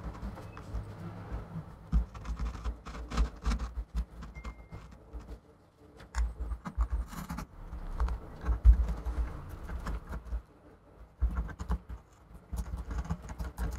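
Irregular scraping, clicking and tapping of a blade working sticky old display adhesive off the edge of an iMac's aluminium housing, with dull handling bumps.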